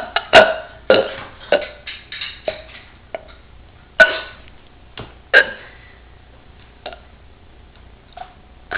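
A girl with hiccups burping over and over, about a dozen short burps. They come close together at first and further apart later, and the loudest are about four and five and a half seconds in.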